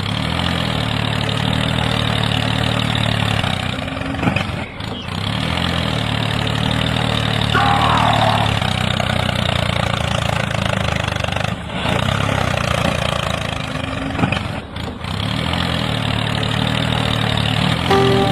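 A tractor-like engine running steadily, broken by a few brief dips, with a short squeal about eight seconds in.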